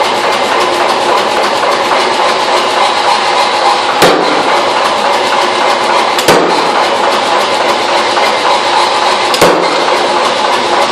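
A forging power hammer runs with a loud, steady machine noise, and strikes the hot iron bar on its die three times with sharp single blows, about four, six and nine and a half seconds in.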